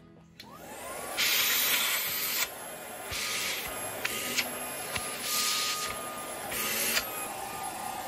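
Cordless stick vacuum with a crevice nozzle switching on, its motor spinning up with a rising whine, then running steadily with a rush of suction. The rush grows louder in four short spells.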